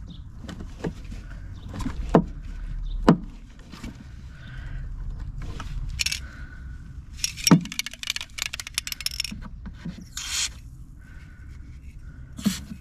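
A few sharp metal knocks, spread out, of oblique blows on a flat screwdriver set against a rusty screw head to loosen it, with scraping and rustling in between.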